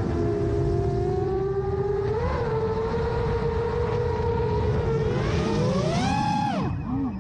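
Brushless 2806 motors and propellers of a 7-inch FPV quadcopter whining in flight over a rushing noise. Near the end the pitch climbs as the throttle goes up, then falls sharply as the throttle is cut.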